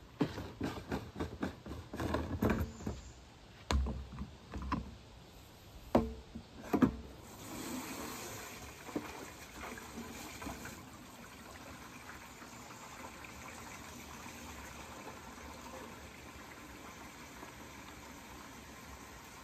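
Water from a garden hose running steadily into a plastic ATV sprayer tank as it fills, after a string of sharp knocks and clunks in the first seven seconds while the hose is handled.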